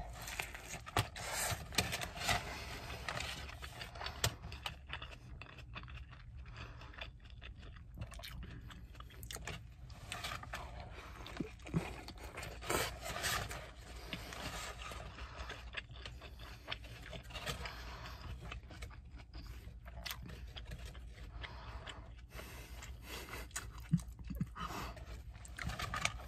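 A person chewing a gyro sandwich close to the microphone: irregular small wet smacks and crunches over a steady low hum.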